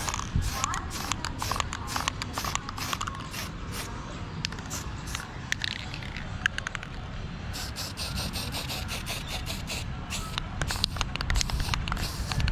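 Aerosol spray-paint can hissing in many short bursts as paint is sprayed onto a wall, with a denser run of sprays in the second half.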